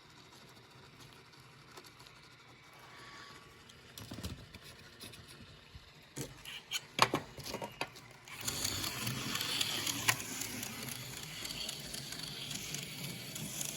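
A few light clicks and knocks. Then, from about eight seconds in, a Johnny Lightning Thunder Jet 500 HO slot car runs around its track with a steady whirring noise and small ticks. The car is not yet oiled and its tyres and the track are dirty, which the owner blames for its sticking.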